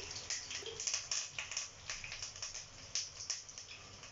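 Curry leaves spluttering in hot coconut oil in a pan: irregular sharp crackles and pops over a faint sizzle.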